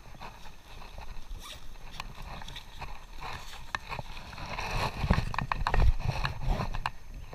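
Scuffing, rustling and knocking of a climber's clothing, shoes and hands on rope and dirt, picked up close by a chest-mounted action camera, with irregular low thumps. The knocks and scrapes grow louder about five seconds in, then ease off.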